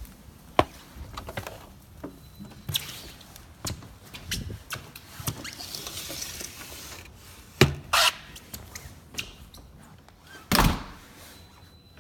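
Footsteps with the knocks and thuds of a door being opened and shut, the loudest thud about ten and a half seconds in.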